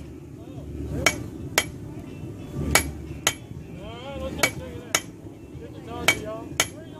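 Blacksmith's hammer striking hot steel on an anvil while forging a leaf: eight blows in four pairs, each pair about half a second apart, each blow ringing briefly.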